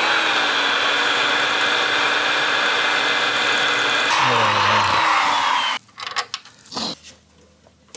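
Electric drill running at steady speed as it bores through the painted steel rear fender of a motorcycle. Its pitch dips about four seconds in, and it stops just before six seconds, followed by a few light clicks.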